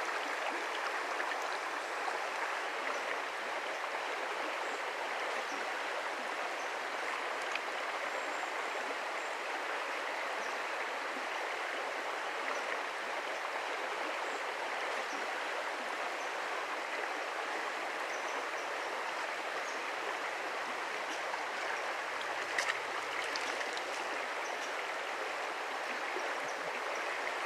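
Shallow rocky river running steadily over stones: an even, unbroken rush of flowing water.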